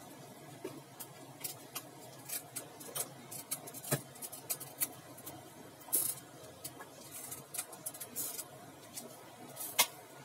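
Cooking oil heating in a wok for a stir-fry, crackling irregularly, while a metal spatula spreads it around with small scrapes and clinks. A sharp clink of the spatula on the wok near the end is the loudest sound.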